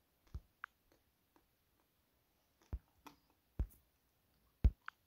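A handful of short, soft taps of a fingertip on a phone's touchscreen, pressing the Random button to generate new IMEI numbers; the loudest tap comes near the end.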